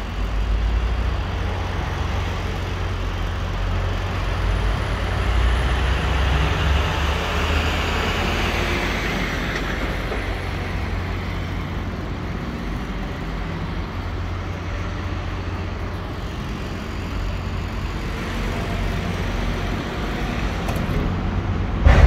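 Scania 770S's 16-litre V8 diesel running at low speed as the tractor-trailer rolls slowly by: a steady low rumble that grows somewhat louder around six to nine seconds in, then eases. A short sharp knock near the end.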